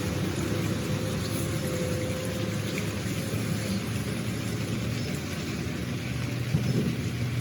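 A vehicle engine running steadily at idle, a low, even hum.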